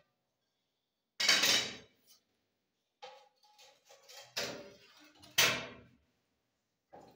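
A few separate knocks and clatters of flat sheets being handled and laid down on a stone kitchen counter. The loudest come about a second in and about five and a half seconds in, with a smaller one between them.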